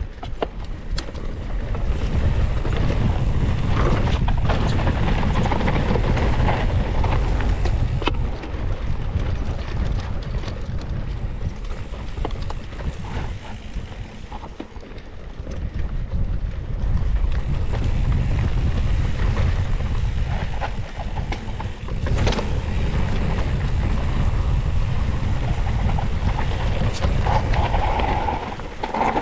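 Wind rushing over the microphone of a camera riding along on a mountain bike at speed, with tyres running over dirt and the bike rattling over the ground. The rush eases for a few seconds near the middle, then picks up again.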